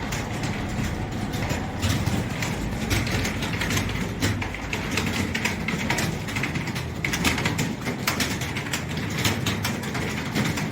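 A steady low rumble with rapid, irregular clicking throughout, like a busy mechanical clatter.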